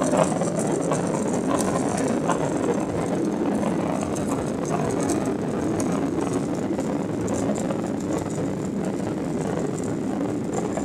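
Steady cabin noise inside a Ryanair Boeing 737-800 climbing out after takeoff: an even rush of airflow and the hum of its CFM56 turbofan engines.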